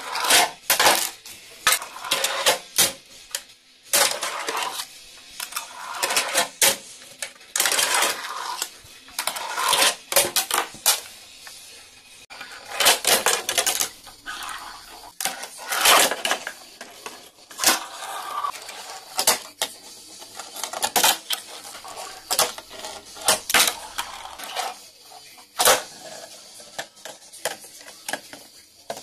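A Tech Deck fingerboard being ridden on a wooden table and plastic ramps: repeated sharp clacks as the board and trucks pop and land, with short stretches of wheels rolling and scraping between them.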